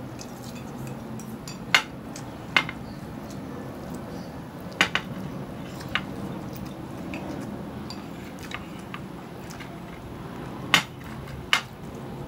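Chopsticks clicking sharply against a ceramic bowl while noodles are picked up and eaten, about six irregular knocks with a steady low background underneath.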